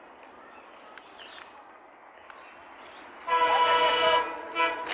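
Multi-tone air horn of an ALCO WDM-3A diesel locomotive: one blast of nearly a second, about three seconds in, then a second short toot.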